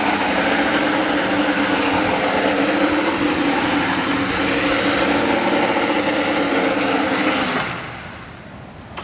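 Small DC motors and propellers of a homemade quadcopter drone boat spinning at full speed, a steady buzzing whine. It falls away sharply near the end.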